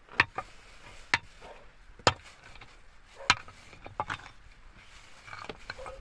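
A series of sharp chopping knocks, irregular and roughly one a second, with the strongest four in the first three and a half seconds and softer ones near the end.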